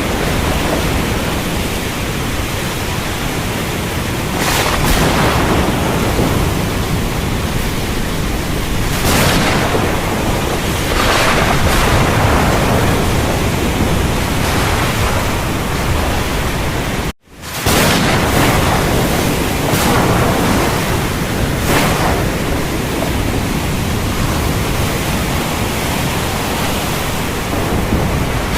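Heavy rain pouring steadily with a deep thunder rumble beneath, swelling louder several times. The sound drops out abruptly for a moment about two-thirds of the way through, then resumes at full strength.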